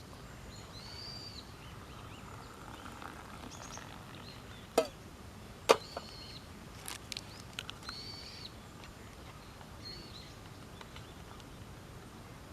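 Bird calls: short arched high notes repeating every two seconds or so over a steady outdoor background hum, with two sharp cracks a little under a second apart near the middle.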